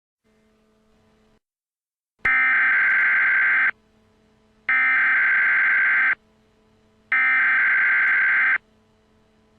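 Emergency Alert System SAME header: three identical bursts of digital data tones, each about a second and a half long with a pause of about a second between them, over a faint hum. These encoded bursts mark the start of a new emergency alert.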